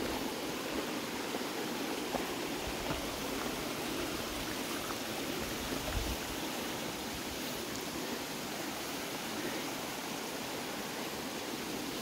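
Shallow mountain creek flowing: a steady rush of water with no change in level, and a single soft low thump about halfway through.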